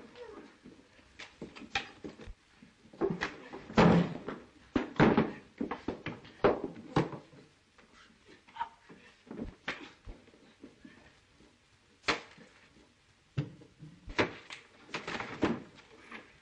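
Fistfight: an irregular run of heavy thuds and smacks from punches and bodies crashing against furniture, with scuffling between, the hardest blows coming about four, five and twelve seconds in.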